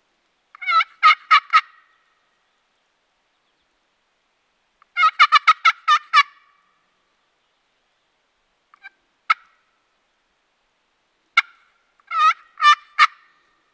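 Wild turkey gobbling loudly: three rapid warbling gobbles, one about half a second in, one about five seconds in and one near the end, with a couple of short single notes between them.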